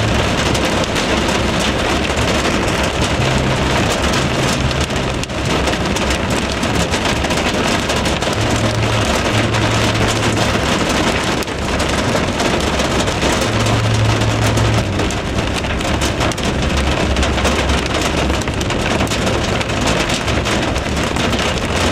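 Extremely heavy rain pouring down in a steady, dense hiss, with a low rumble coming and going underneath.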